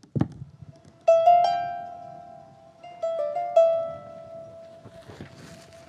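Plucked notes from a tall medieval-style string instrument, the opening of a solo improvisation on a medieval Alleluia melody. Two quick clusters of notes come about a second and three seconds in, each ringing on and fading, after a low thump at the very start.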